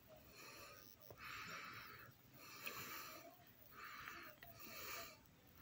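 Faint breathing of a person close to the microphone: short hissy breaths about once a second.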